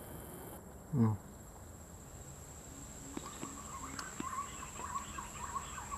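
Warbling whistled calls of green pigeons start about halfway through and keep going, over a steady high insect drone. A short, loud falling call comes about a second in.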